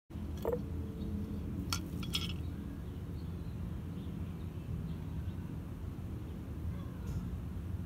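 A few sharp clinks in the first couple of seconds, with the first ringing briefly, from the glass mason jar being handled. They sit over a steady low outdoor rumble.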